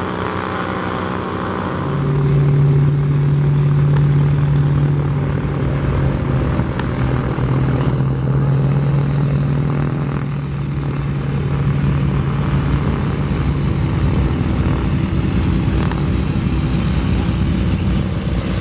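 A Sopwith 1½ Strutter replica biplane's piston engine and propeller running at full power on its takeoff run: a steady engine drone that carries on as the biplane lifts off near the end. In the first two seconds a different aircraft engine is heard, before the drone gets louder.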